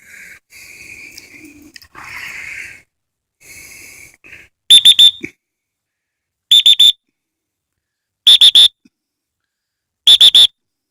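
Dog-training whistle blown in four groups of about three short, sharp toots, about two seconds apart: the series of quick toots used to call a retriever in.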